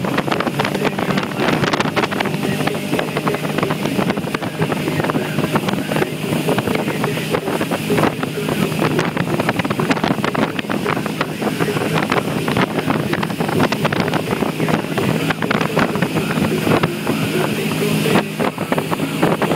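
Motorboat engine running steadily at speed, with wind buffeting the microphone.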